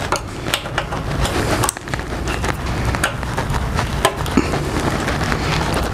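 Irregular small clicks and scrapes of hand work with a screwdriver, driving screws back in by hand at the motorcycle's fuel tank. They sit over a steady low background noise.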